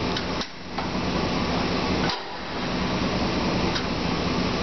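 DoAll 20-inch vertical band saw running steadily with a low hum, its low gear engaged. Sharp clicks come as the controls in its base are worked, and twice the running sound briefly drops right after a click.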